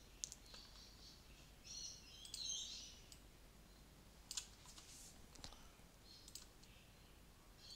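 Near silence, broken by a few faint, sharp computer-mouse clicks, with some faint high chirping about two seconds in.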